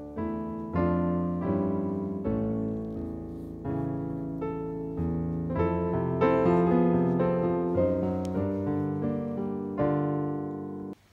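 Background piano music: a slow, gentle melody of struck notes and chords that fade out, changing about once a second. It cuts off abruptly just before the end.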